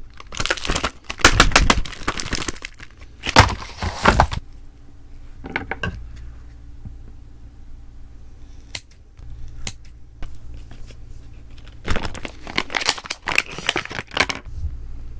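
Plastic packaging crinkling and rustling in the hands in close-up, in loud bursts through the first few seconds and again near the end, with a quieter stretch of small clicks and taps in between.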